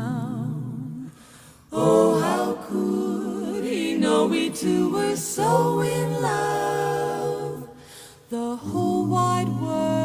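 Four-voice a cappella jazz vocal group singing a slow ballad in close harmony, with no instruments. The sung phrases break off briefly twice, about a second in and about eight seconds in.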